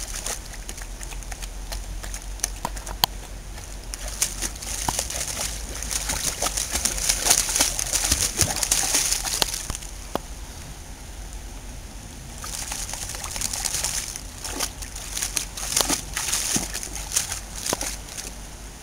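A dog wading and pawing in shallow river water, its legs splashing and sloshing, loudest in two spells: from a few seconds in to about halfway, and again in the second half.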